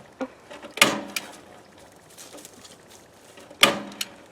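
Two sharp knocks about three seconds apart, each followed by a lighter click, from a tool working on the wooden hive box as the wire screen is fastened to its bottom.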